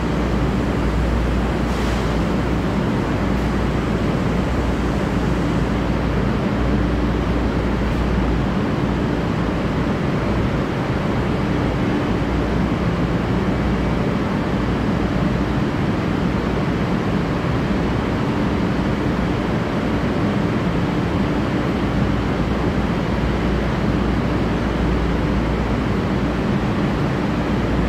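Steady low rumble and hum of an underground train station's ambience, with no train moving on the near track. A faint steady tone runs through the hum without change.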